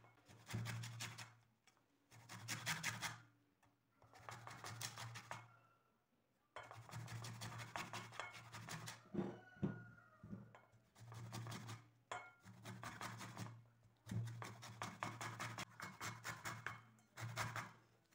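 A lemon being grated on a flat metal hand grater, taking off only the thin yellow outer peel: bursts of quick rasping strokes about a second long, separated by short pauses, with a longer break about a third of the way in.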